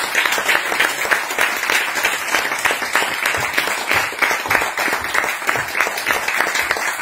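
Small theatre audience applauding steadily, many hands clapping at once.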